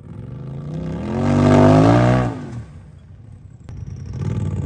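Racing UTV engine revving: its pitch and loudness climb to a peak about a second and a half in, then drop away and fade. Another engine starts rising near the end.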